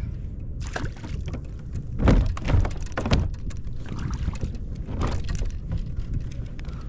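Wind buffeting the microphone aboard a fishing kayak, with several hard knocks about two, three and five seconds in.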